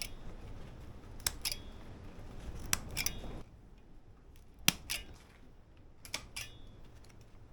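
Garden scissors snipping through plant stems while harvesting: sharp double clicks of the blades closing, repeated four times about every second and a half.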